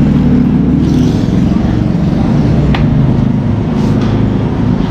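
An engine running steadily close by, with a single sharp click about three seconds in.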